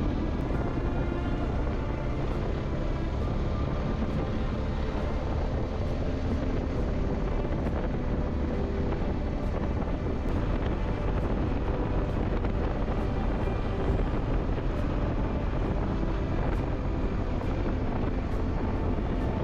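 Motorcycle riding at a steady pace: the engine runs under a steady rush of wind on the microphone.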